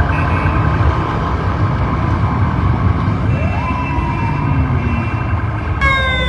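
Police car sirens over a steady rumble of street traffic and engines: one slow rising wail about three and a half seconds in, then a fast rising sweep near the end.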